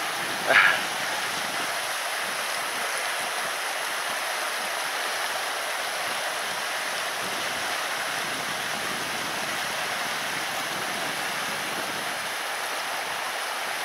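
Steady rushing of a taiga river, with a short, loud high-pitched call about half a second in.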